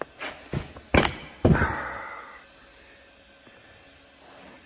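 Several knocks and thuds from handling an office chair with pliers. The two loudest come about one and one and a half seconds in, and the last leaves a short fading rustle.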